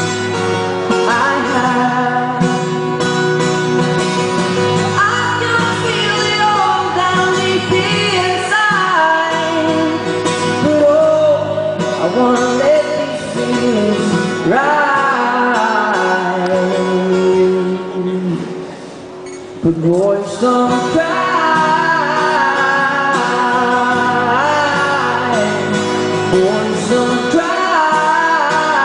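Young male singer singing live while accompanying himself on an acoustic guitar. The music briefly drops away about two-thirds of the way through, then the singing resumes.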